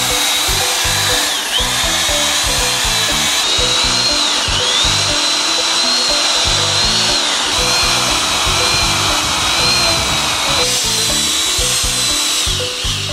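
A hand-held plastic welding gun and a heat gun running: a steady high motor whine that dips in pitch briefly a couple of times, over a hiss of hot air. Background music with a steady beat plays over it.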